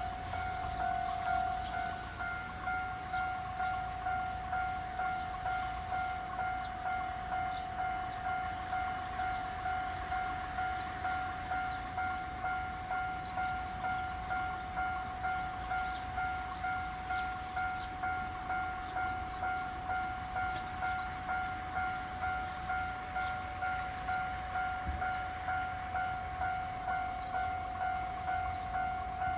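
Japanese level-crossing warning bell ringing steadily in an even beat of about one and a half strikes a second, the alarm that signals an approaching train.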